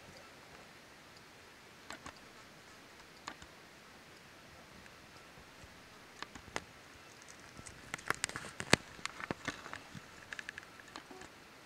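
Scattered light clicks and knocks of gear being handled, with a dense run of clicks from about three-quarters of the way in to near the end.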